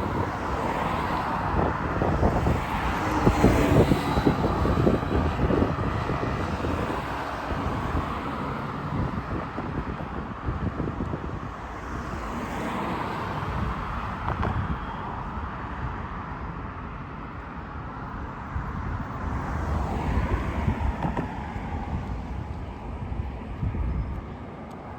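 Street traffic: cars passing on a city road, with louder pass-bys about three seconds in and again near twenty seconds.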